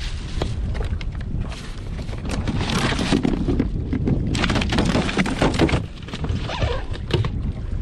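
Wind buffeting the microphone on a small inflatable boat, with irregular knocks, clicks and water slaps against the hull.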